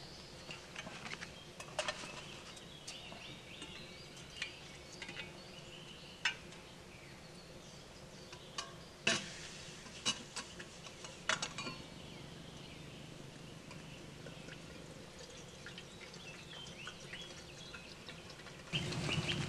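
Quiet woodland ambience with birds chirping, broken by a few sharp clicks and knocks, about six in all. Near the end the background steps up louder.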